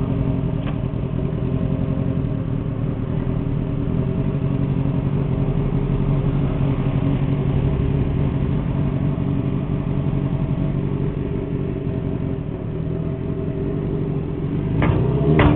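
Honda Jade 250's inline four-cylinder four-stroke engine idling steadily, with two quick revs of the throttle near the end.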